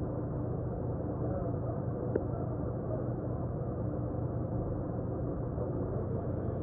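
Plumber's gas torch flame burning steadily as it heats a copper fitting on a vertical pipe for soldering, with a single faint tick about two seconds in.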